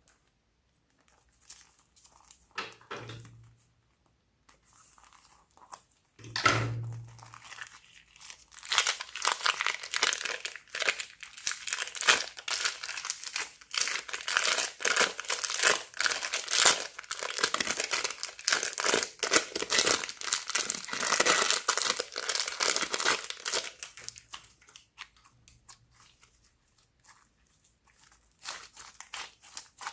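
Slime being squeezed and worked by hand: two dull thumps in the first several seconds, then a long, dense run of sticky crackling and popping that dies away near the end.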